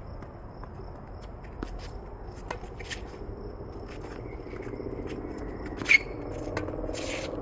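Tennis rally on a hard court: fainter pops of the ball off the far racket and the court, then a sharp, loud racket strike on the ball about six seconds in as the near player hits a forehand.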